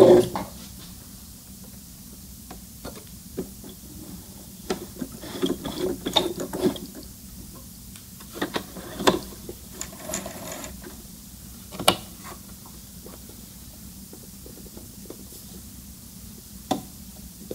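Brother ST371HD sewing machine stops stitching right at the start. Then come scattered small mechanical clicks and taps, with light fabric rustling, as the knit seam is handled and drawn out from under the raised presser foot, over a faint steady hum.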